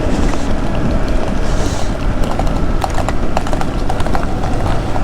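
Horses' hooves clip-clopping on the road as horses are ridden past: a run of sharp, irregular hoof strikes, mostly in the second half, over a steady wash of wind and motorcycle noise.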